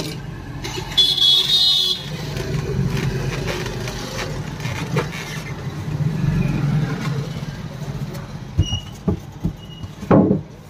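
Street traffic with engines running, and a vehicle horn honking for about a second, about a second in. A few sharp knocks come near the end.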